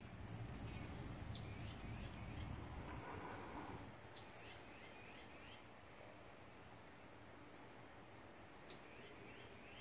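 Faint birds chirping in a garden: short, high, downward-sweeping chirps about once a second, over a low rumble that fades out about three seconds in.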